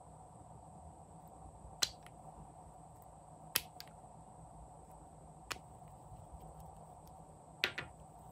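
Sharp clicks from a nail polish bottle and its brush cap being handled while polish is dabbed onto slime in a glass bowl: four of them about two seconds apart, the last a quick double click near the end, over a faint steady hum.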